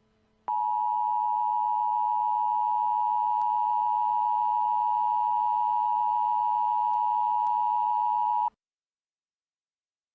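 Emergency Alert System attention signal: a steady two-tone alarm (853 and 960 Hz together) held for about eight seconds, starting about half a second in and cutting off suddenly. It signals that an emergency alert message is about to follow.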